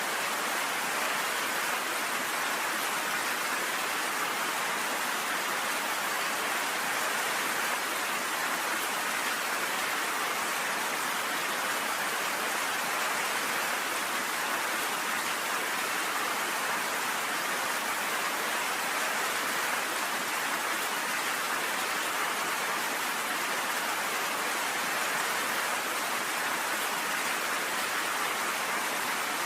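Steady rain falling and pattering on a porch, an even hiss with no thunder.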